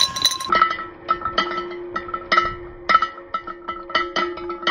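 A ball rolls along a steel rail, stopping about half a second in. Then comes a run of sharp clinks and knocks, roughly two a second, as balls drop into a glass vase and strike the glass and the other balls. The vase rings steadily under the knocks.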